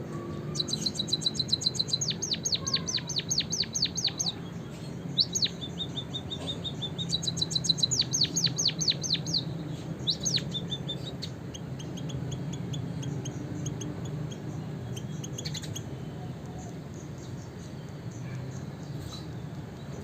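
A small songbird singing in runs of rapid, high down-sweeping notes, about eight a second, in several phrases with short breaks. After about eleven seconds the trills turn softer and lower, over a steady low hum.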